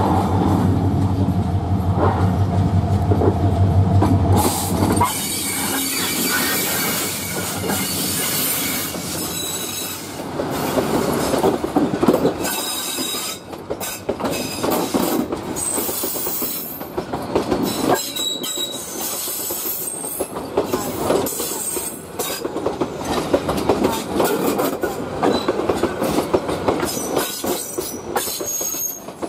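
Diesel locomotive passing close by, its engine running with a steady low hum for the first four or five seconds. Then the passenger coaches roll past with their wheels clacking over the rail joints and squealing now and then as the train crosses over from the loop line to the main line.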